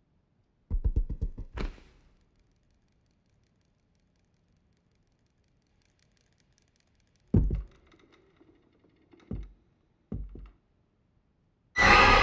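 Horror film sound design: a quick run of knocks ending in a sharp thud about a second in, then a few scattered thuds, and near the end a sudden loud blast of harsh, noisy sound as a jump-scare sting.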